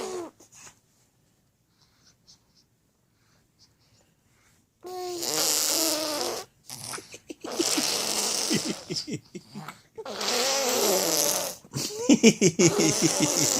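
Loud "raspberry" snoring: after about five seconds of near quiet come four snoring breaths, each starting on a short pitched note and breaking into a rapid flapping, buzzing rattle.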